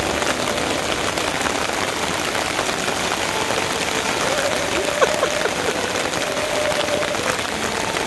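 Steady rain falling, an even hiss, with a faint held tone underneath.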